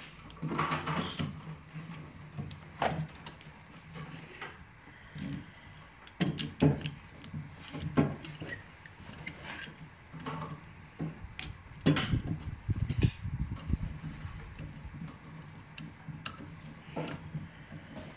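Scattered clicks and knocks of a plastic Kreg pocket-hole jig being handled, set on a wooden 2x4 and clamped down, with wood knocking against the bench. The loudest knocks come about seven, eight and twelve seconds in.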